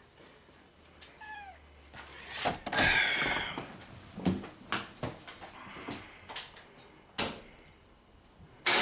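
Domestic cat meowing: a faint short meow about a second in and a louder one around three seconds in, among scattered light knocks and thumps, with a sharp loud knock near the end.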